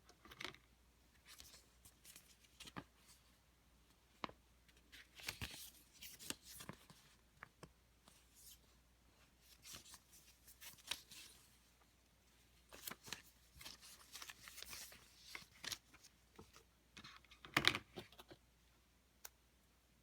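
Hands handling the Apple Watch Sport's packaging: scattered small clicks and brief rustles of paper and plastic, with the loudest handling noise near the end.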